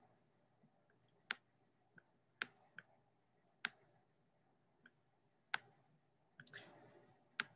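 About eight sharp, single computer mouse clicks at irregular intervals, with a soft faint rustle near the end, over otherwise near silence.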